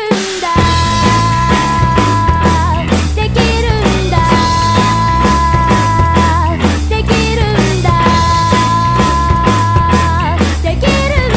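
Loud rock music with a driving drum beat and heavy bass; a long held high note comes back about every four seconds.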